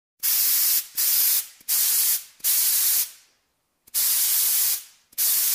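Spray hiss sound effect in six short bursts, each about half a second to a second long, with brief silent gaps between them.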